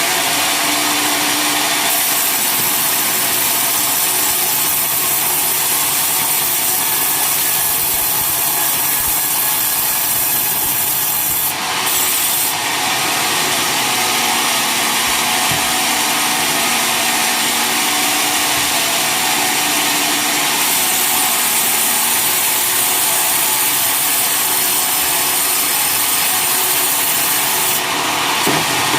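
Homemade sawmill blade cutting lengthwise through a coconut palm log, a loud, steady sawing noise that briefly drops about twelve seconds in.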